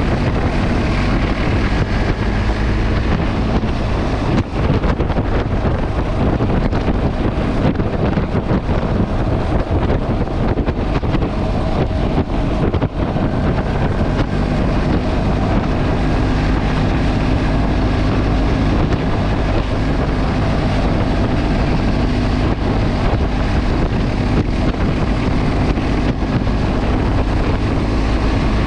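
Motorcycle engine running steadily under way, heard under heavy wind rush on the microphone, with its pitch shifting a couple of times as speed changes.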